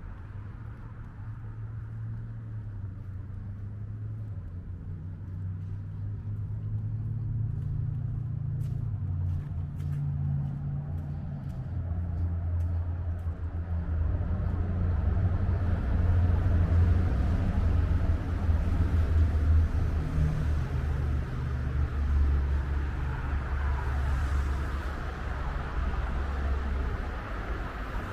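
Low rumble of road traffic, with vehicles passing close by; it builds gradually and is loudest in the second half.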